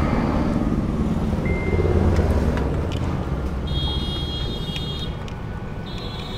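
Road traffic going by, loudest about two seconds in. Over it come two high, steady screeches of electrical tape being pulled off the roll, the first lasting over a second and the second starting near the end.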